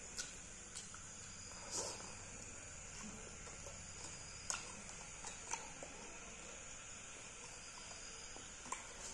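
Faint eating sounds from a meal of rice and fish curry eaten by hand: scattered short clicks and smacks from chewing, with fingers picking at the food on a steel plate.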